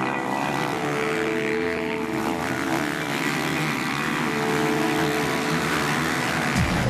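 Several motocross bikes' engines revving hard and overlapping as the riders take a jump, their pitch rising and falling.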